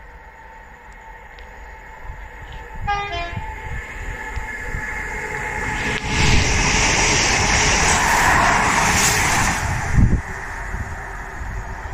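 Class 170 and class 172 Turbostar diesel multiple units coupled together, approaching and passing close at speed. A short horn blast sounds about three seconds in, then loud rushing wheel and engine noise as the train goes by, with a thump about ten seconds in.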